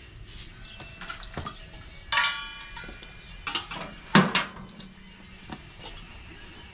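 Metal tools or parts clinking and knocking: a small knock, then a ringing metallic clink about two seconds in, and a louder clank about four seconds in, with lighter ticks between.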